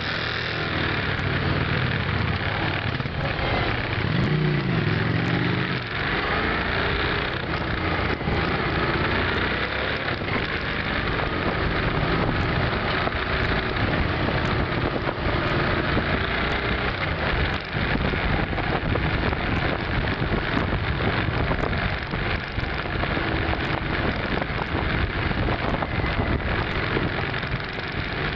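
V-twin cruiser motorcycle on the move in traffic: the engine running under a steady rush of wind and road noise, with a brief rise in engine pitch about four seconds in.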